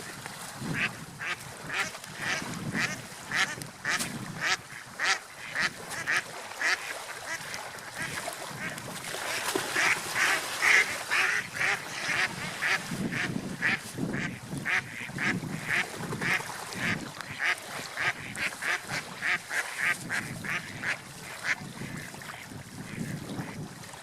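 Ducks quacking in a long run of short, rapid calls, about two to three a second, swelling loudest about halfway through.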